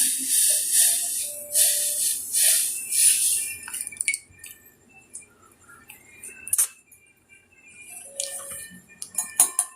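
Kitchen utensils straining a hot decoction: repeated swishing and scraping of a strainer against the vessel over the first few seconds, then a few light metal clinks, with a quick cluster near the end.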